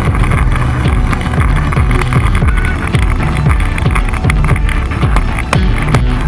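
Longboard wheels rolling over asphalt, a loud steady rumble with gritty clicks, picked up from just under the board's deck.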